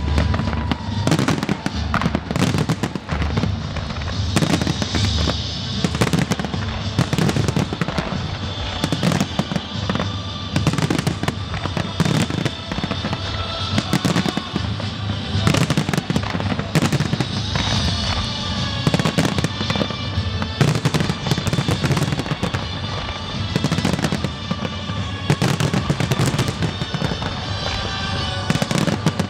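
Large fireworks display: many shell bursts in quick succession, with music playing throughout.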